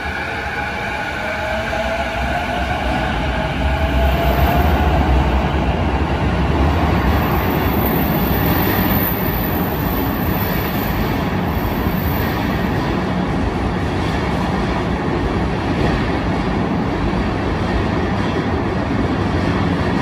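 Keiyo Line electric commuter train pulling out of the platform: the traction motors' whine rises in pitch over the first few seconds as it accelerates. It then gives way to a steady rumble of wheels on rail as the cars run past, loudest a few seconds in.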